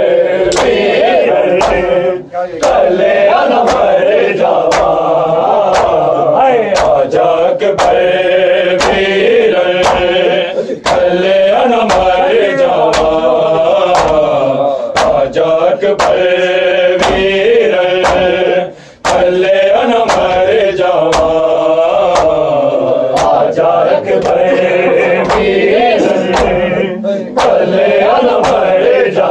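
Men's voices chanting a noha, an Urdu/Punjabi mourning lament, in unison, with a steady beat of matam (hands striking chests) keeping time at a little over one beat a second.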